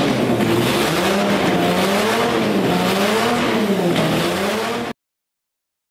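Wankel rotary engine running on a test stand, its revs rising and falling several times as the throttle is blipped. The sound cuts off suddenly about five seconds in.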